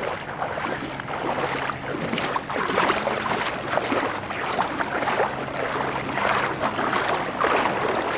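A person wading through floodwater, the water sloshing and splashing around the legs with each step.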